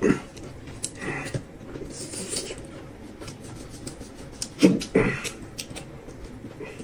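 Close-up eating sounds: chewing and mouth noises in a few short bursts, with light scraping and small clicks as a knife cuts through a steamed bun on a plate.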